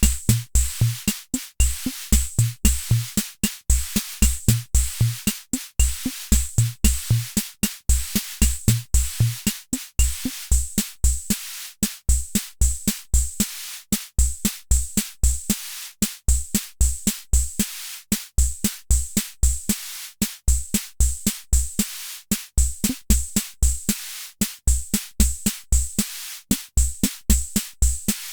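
Hammond Auto-Vari 64 analog rhythm machine playing a preset beat: low bass drum thumps and bright, hissing cymbal-like hits in a steady repeating pattern, several strikes a second.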